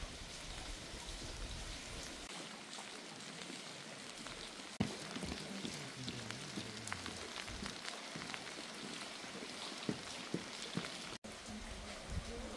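Steady rain falling, with many individual drops ticking on nearby surfaces and one sharper knock about five seconds in.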